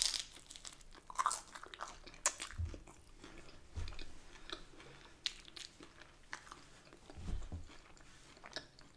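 A person biting into a piece of pizza crust and chewing it, close to the microphone: many small crackly clicks, with a few low, soft thuds.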